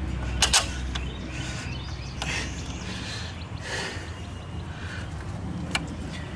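A few sharp metal clicks of a bolt and the alternator bracket being handled and fitted, with short rustles between them, over a steady low background hum.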